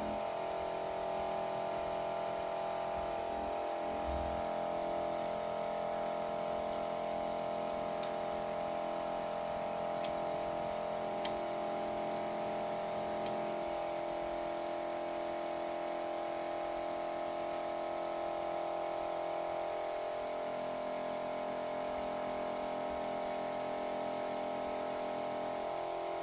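Vacuum suction pump of a screen-separator machine running with a steady hum of several fixed tones, holding the phone's screen down; a few faint ticks about midway.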